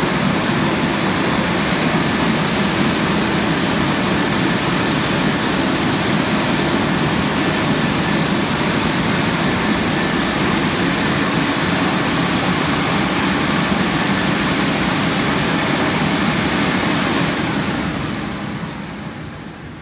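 Rollover car wash's dryer blowers running: a loud, steady rush of air that fades away over the last two seconds as the fans wind down.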